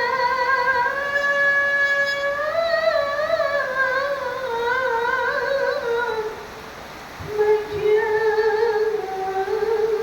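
A single high voice singing long, ornamented held notes with vibrato, in the manner of a rebana group's vocalist. It breaks off for about a second after six seconds, with two soft low thuds, then resumes.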